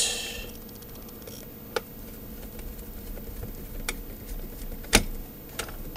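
Screwdriver turning a front-panel screw into the metal case of a Yaesu G-1000DXC rotator controller: a few faint scattered clicks, the sharpest about five seconds in, over a low steady hum.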